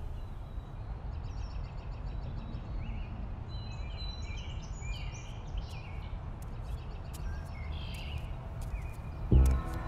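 Outdoor ambience of many small birds chirping and calling over a steady low rumble. Near the end a loud low boom comes in as music starts.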